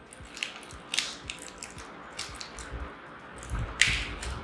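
Headphone-box packaging being handled as the contents are taken out: scattered soft rustles and small clicks, with a louder crinkle near the end.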